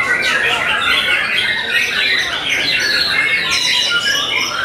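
Caged white-rumped shamas singing at a songbird contest: several birds at once in a dense, loud, unbroken stream of quick whistles, trills and chattering calls.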